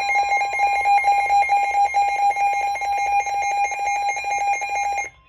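Weather radio alert tone: a loud, steady electronic alarm tone with a rapid buzz in it, cutting off sharply about five seconds in. It is the attention signal that comes before a severe thunderstorm warning broadcast.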